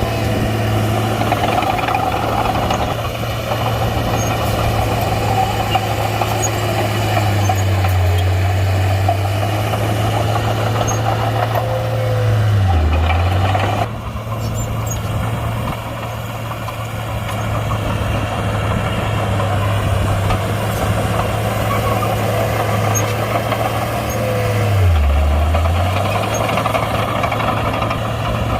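Komatsu D31-P crawler bulldozer's diesel engine running under work. The engine note dips briefly twice, about halfway through and near the end.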